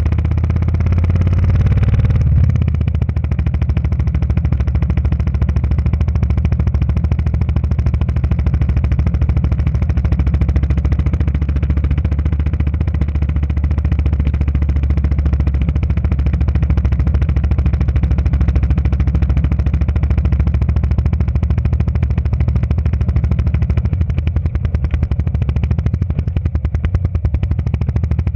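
Motorcycle engine running steadily while riding along a rough dirt road, a rapid low pulsing throughout. It is a little louder for the first two seconds.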